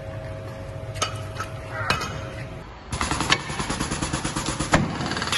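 Impact wrench turning the centre screw of a brake disc puller, a rapid steady rattle of blows that starts about three seconds in and is the loudest sound. Before it come two sharp metal clanks over a steady hum.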